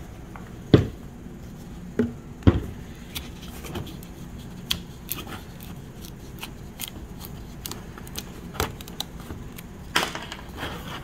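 Plastic quart bottles of automatic transmission fluid handled on a workbench: a few sharp knocks as bottles are set down, the loudest about a second in, and light clicks and crackles of screw caps being twisted off.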